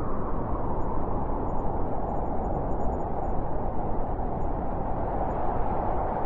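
Wind blowing: a steady low rushing with no gusts breaking it.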